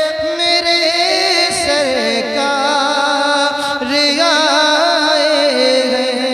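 A man's solo voice singing a naat, an Urdu devotional poem in praise of the Prophet, into a microphone. He holds long, sliding notes with a wavering vibrato.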